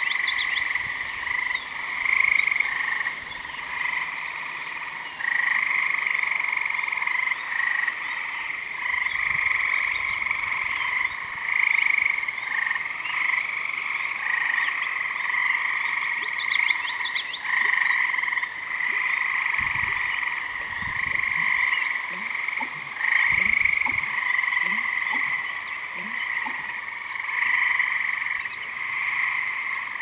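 A loud, unbroken chorus of tree frogs trilling, with songbirds chirping high above it now and then. About two-thirds of the way through, twice, an American bittern gives its low, gulping pumping call under the frogs.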